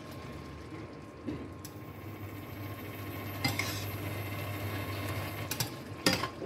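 A metal spoon stirs and scrapes chicken pieces in soy sauce around a nonstick frying pan. It knocks against the pan a few times, the loudest clink coming near the end.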